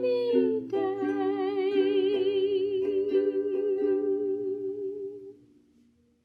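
A woman's voice holding the song's final long note with a wide vibrato over a soft instrumental accompaniment, fading out about five seconds in.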